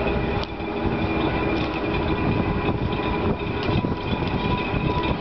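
Railway turntable turning with the EF81 electric locomotive on it: a steady mechanical hum and rumble, with a few faint clicks.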